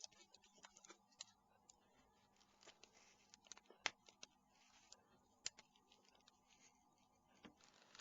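Near silence with faint, scattered small clicks, the two loudest about four and five and a half seconds in: plastic parts of a Nokia 6290 phone being handled and snapped together.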